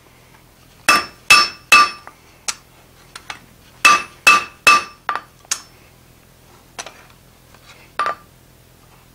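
Hand hammer striking red-hot spring steel on an anvil while forging the flared chisel edge of a hardy. Two groups of three hard, ringing blows, with lighter taps after each group, then a few soft taps near the end.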